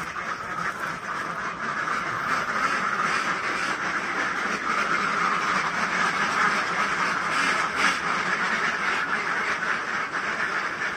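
A large flock of Pekin ducks quacking continuously, many calls overlapping into a steady din.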